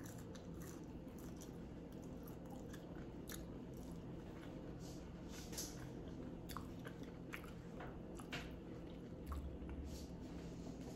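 Someone chewing fried green plantain fries: faint, irregular crunches and mouth clicks.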